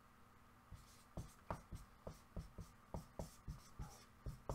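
Faint dry-erase marker strokes on a whiteboard as letters are written: a run of short, separate strokes and taps, a few a second, beginning under a second in.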